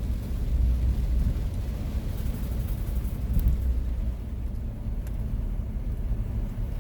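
Driving noise inside a van in heavy rain: a steady low engine and tyre rumble under the hiss of rain on the body and road. The rain hiss thins out a little from a few seconds in, as the downpour eases.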